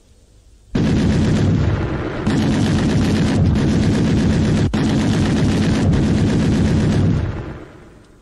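Long bursts of automatic fire from an armoured vehicle's turret-mounted machine gun, loud and continuous. It starts about a second in, eases briefly near two seconds, resumes, and dies away near the end.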